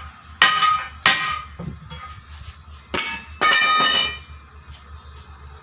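Hand hammer striking a steel tyre bar driven in at a truck tyre's bead to break it from the rim: four ringing metallic clangs in the first four seconds, the last two close together and ringing on for most of a second.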